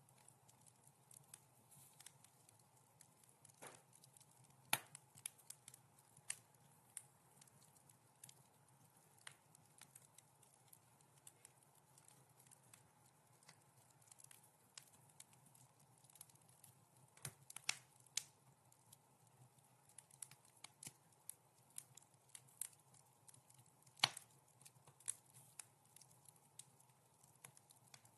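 Wood fire crackling softly in a fireplace: scattered small snaps and pops, with a couple of louder pops about five seconds in and again a few seconds before the end.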